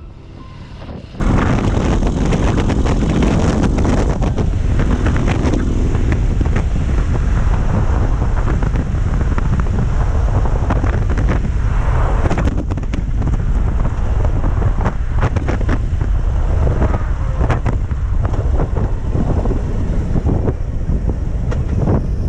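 Heavy wind buffeting on a bike-mounted action camera's microphone over the low rumble of a Harley-Davidson Street Glide ST's V-twin at riding speed. It jumps suddenly louder about a second in and then stays steady.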